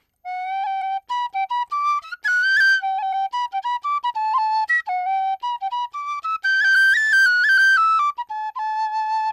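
A 3D-printed Qwistle penny whistle, with its windway glued in place for a cleaner tone, playing a quick tune of short separate notes. It jumps up into its breathier upper register twice, about two seconds in and again around seven seconds.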